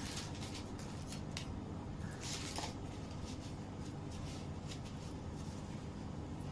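Faint handling noises from cake-decorating work, short rustles and light scrapes with a cluster of them a little over two seconds in, over a steady low hum.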